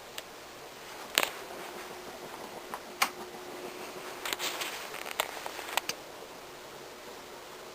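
Patton 56-inch industrial ceiling fan running with a steady hiss of moving air. Several sharp clicks and knocks come through the middle, about six, with a small cluster around four and a half seconds in, and a faint hum runs underneath for a few seconds.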